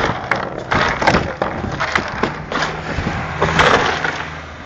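Busy background of scattered knocks and handling clatter over a low steady hum.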